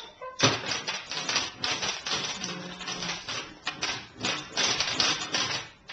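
Crinkling and rattling of a plastic bag of small toy pieces being handled in quick, irregular bursts, starting about half a second in.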